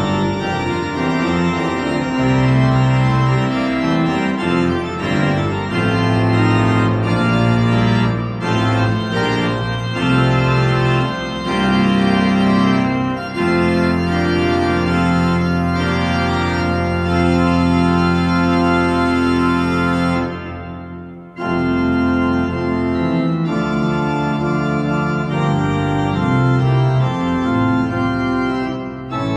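Eisenbarth pipe organ playing sustained full chords over long-held pedal bass notes. The music breaks off briefly about two-thirds of the way through, then resumes.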